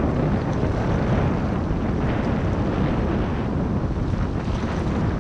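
Steady wind buffeting the microphone, over surf washing across a shallow coral reef.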